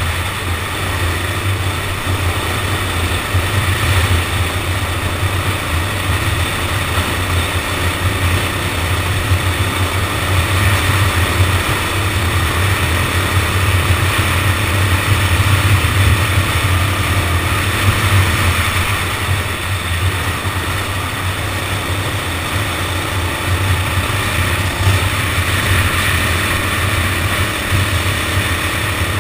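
Go-kart engine running steadily under way, with rushing noise, heard from a camera mounted on the kart.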